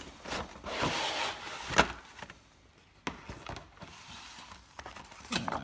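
Cardboard model-kit box being opened, its lid sliding off with rustling and scraping. There is a sharp knock a little under two seconds in and a lighter tap about a second later, then quieter handling of the cardboard.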